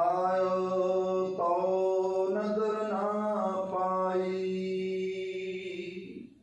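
Kirtan chanting: a long sung phrase held on steady notes, moving to a new note a few times, with a low steady tone underneath. It stops shortly before the end.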